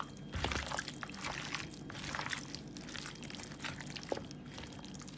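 A hand squishing and rubbing raw, seasoned chicken pieces in a bowl to marinate them: repeated wet squelches, with a short low thump about half a second in.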